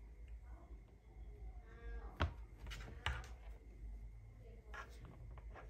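Hands handling a laptop in a clear plastic hard-shell case: two sharp clicks about a second apart, then a couple of softer taps.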